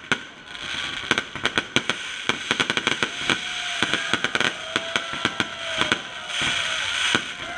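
Fireworks display: a rapid, irregular string of sharp bangs from bursting aerial shells over a steady crackling hiss.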